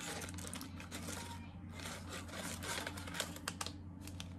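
Tea sachets in a gift box rustling and crinkling as fingers sort through them and pull one out: a run of small crackles and clicks, with a few sharper ticks near the end, over a steady low hum.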